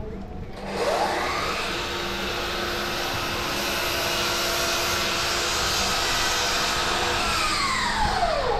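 A small electric blower motor spins up with a rising whine, runs steadily with a rush of air for about seven seconds, then winds down with a falling whine near the end.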